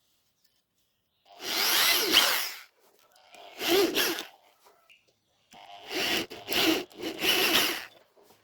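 A tool working on a small part in five short bursts of scraping, grinding noise, the first and longest about a second in.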